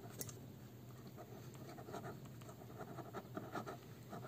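Pen writing on paper: faint scratching of many short pen strokes as a word is written out.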